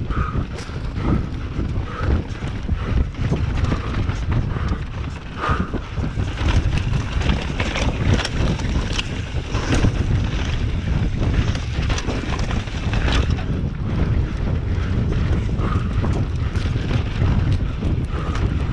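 Wind buffeting the camera microphone while a Yeti SB150 mountain bike rolls over a dirt singletrack, with the rumble of the tyres on the trail and frequent short rattles and clicks from the bike over rough ground.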